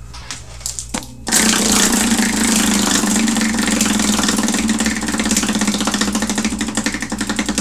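Hand-spun prize wheel whirling, its pointer clicking rapidly against the pegs. The loud run of ticks starts about a second in and begins to slow near the end.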